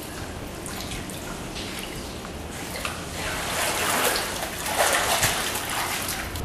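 Pool water splashing and trickling as a person wades through it. It grows louder in the second half.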